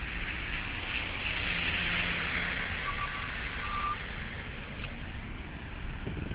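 Street traffic on a wet road: a vehicle's tyres hiss past, swelling and then falling away about four seconds in, over a low rumble of engines. Two short beeps sound shortly before the hiss falls away.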